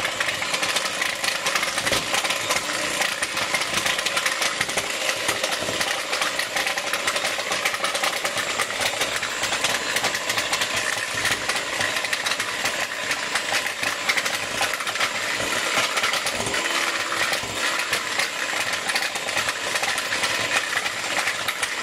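Electric hand mixer running steadily, its beaters whisking a cream cheese and sugar batter in a glass bowl while eggs are added one at a time.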